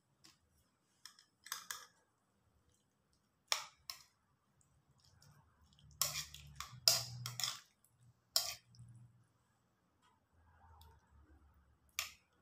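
Metal spoon clicking and scraping against a ceramic plate while rice and curry are mixed: scattered sharp clinks, with a quick run of them about six seconds in.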